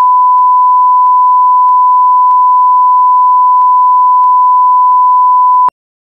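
Loud, steady line-up reference tone of the kind played with colour bars: a single unbroken pure beep at one constant pitch that cuts off suddenly near the end.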